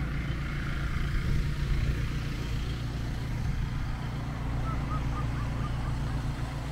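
Steady low outdoor rumble, with a few faint short high chirps about five seconds in.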